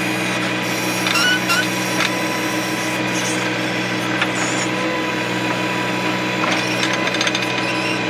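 John Deere 1025R's three-cylinder diesel engine running steadily while driving the 260B backhoe's hydraulics, with the steel bucket scraping and knocking against stony dirt several times.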